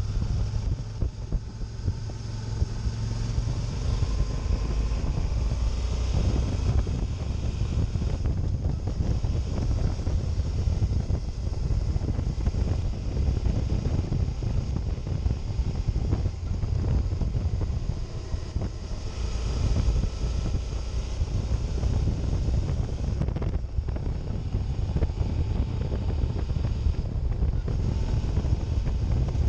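Heavy wind rushing over the microphone of a moving motorcycle, with the Suzuki DL650 V-Strom's 645 cc V-twin engine running steadily beneath it.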